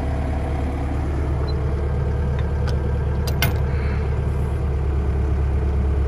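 An engine idling steadily, with a few sharp metal clinks about halfway through as a lifting chain is handled and hooked onto the steel tank's lug.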